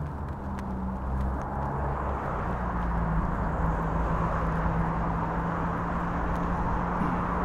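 Road traffic: cars passing close by on a busy city street, tyre and engine noise growing louder about three seconds in, over a steady low hum.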